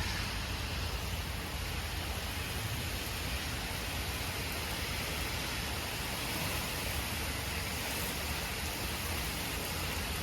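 Heavy thunderstorm rain falling steadily, a constant hiss with a low rumble underneath.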